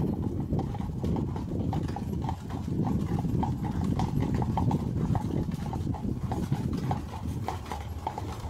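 Horse hooves clip-clopping in a steady rhythm on a cobblestone street as a horse-drawn carriage rolls along, with the carriage's wheels rumbling over the cobbles underneath.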